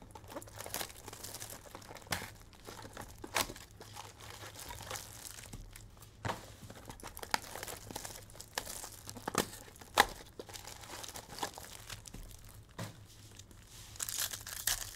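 Sealed 2023 Topps Finest baseball card pack wrappers being torn open and crinkled by hand: irregular crackling and tearing, with one sharp snap about two-thirds of the way in and denser crinkling near the end.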